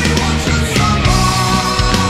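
Heavy metal band recording with drums and a dense band sound, and a high sung note held steadily from about halfway through.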